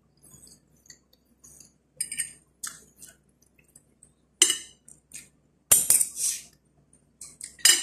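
Metal spoon and fork clinking and scraping on a ceramic plate while eating rice and chicken, in short irregular bursts, the loudest a little before six seconds in.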